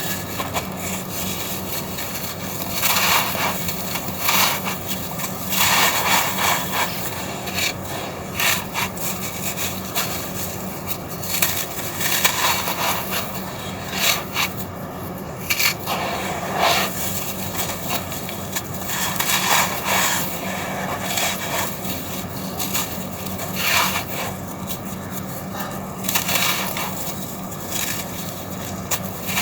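Dry, grainy red sand-and-cement cylinders being crumbled and crushed, giving gritty crunching and scraping in irregular bursts every second or two.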